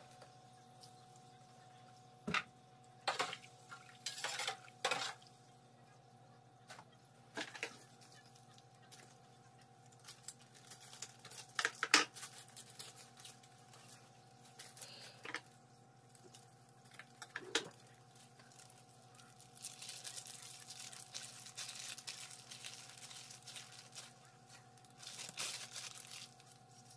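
Kitchen handling sounds: a metal spoon clinking and knocking in a plastic jar, scattered clicks, then plastic bags crinkling and tearing for several seconds near the end. A steady low hum runs underneath.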